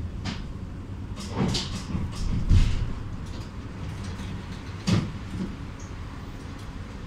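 Bucur V2A-T tram's running rumble dying away as it draws to a stop, with knocks and a heavy low thump about two and a half seconds in. About five seconds in, a sharp clunk as the passenger door opens.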